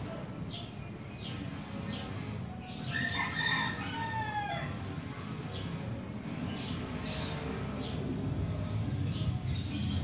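Two cats chewing and lapping sardines in sauce from a plastic tub, a run of short wet clicks and smacks. About three seconds in, a pitched call lasting about two seconds, falling in pitch at its end, sounds in the background.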